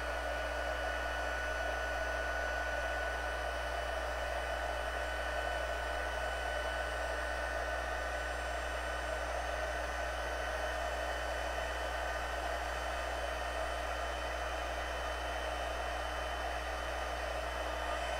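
Handheld embossing heat tool blowing steadily, a rush of hot air with a steady whine from its fan motor, as it melts embossing powder on stamped cardstock.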